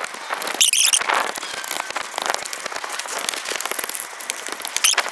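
A small shovel digging and scraping into soil and wood-chip mulch: a dense crackle of grit and chips, with a sharper scrape about a second in and another near the end.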